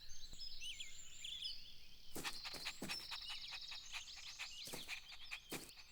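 Faint outdoor nature ambience: birds chirping and whistling, with a brief high trill about two seconds in and a scatter of short sharp clicks in the second half.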